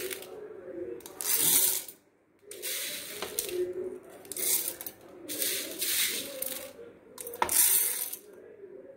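Dry roasted toor dal, peppercorns and garlic rattling on a steel plate and into a steel mixer-grinder jar as handfuls are scooped up and dropped in, in about six short bursts.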